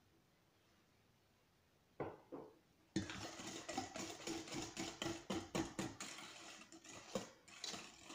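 A wire whisk beats a runny egg, sugar and oil batter in a stainless steel bowl, clinking fast against the metal, several strokes a second, from about three seconds in. A short knock comes just before, about two seconds in.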